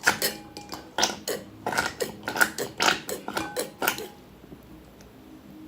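Slime mixture being stirred in a bowl: a quick, irregular run of about a dozen clinks and wet knocks of the utensil against the bowl, stopping about four seconds in.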